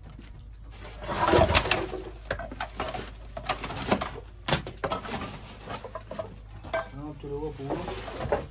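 Sacks, paper and household junk being pulled about and shifted by hand: rustling with repeated knocks and clatters, loudest about a second in.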